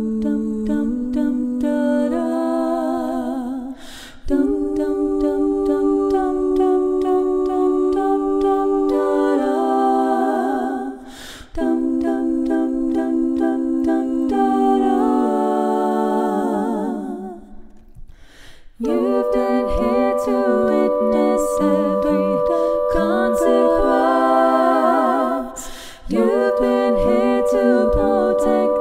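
A cappella female voice multitracked into several harmony parts, one singer layered over herself, holding close chords that change every second or two. The sound thins out briefly about 4 and 11 seconds in, drops away for a second or two around 18 seconds, and breaks again near 26 seconds.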